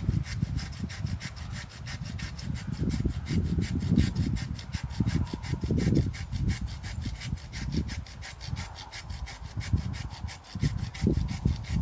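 Handsaw cutting through a dead tree limb in quick, even back-and-forth strokes.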